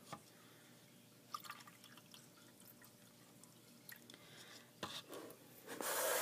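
Diluted drink mix poured between clear plastic cups, with a few light clicks of the cups being handled on the tabletop. Near the end comes a louder rush of noise lasting about a second.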